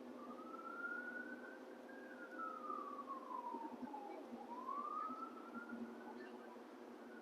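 An emergency vehicle's siren in a slow wail, its pitch sliding up, down and up again about every four seconds, over a steady hum and low background noise.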